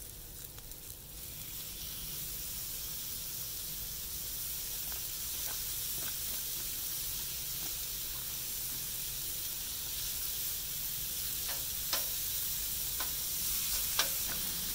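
Thinly sliced beef sizzling on a hot Blackstone propane flat-top griddle, the hiss building over the first couple of seconds as the meat goes down and then holding steady. A few sharp clicks near the end.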